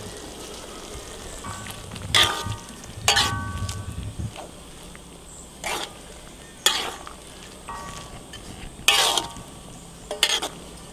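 Crickets being stirred in a basin of water, with a wet swishing and about six sharp knocks of the scoop or hand against the basin. Some of the knocks ring briefly.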